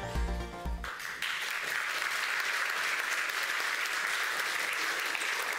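Music cuts off about a second in, and an audience applauds.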